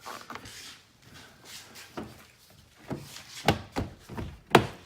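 Plastic interior door panel of a Toyota Tacoma being pressed back onto the door, its retaining clips snapping in: a series of separate knocks and clicks, the loudest near the end.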